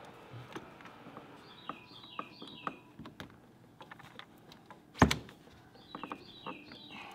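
Plastic tub drain pipe and slip-joint fittings being handled and pushed together: scattered light clicks and knocks, with one loud knock about five seconds in. A bird chirps twice in the background, each time a quick run of three falling notes.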